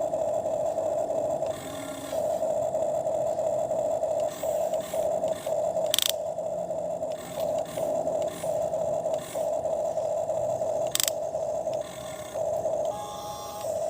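Small electric motor of a toy excavator whining, stopping and starting many times in short runs, with two sharp clicks along the way.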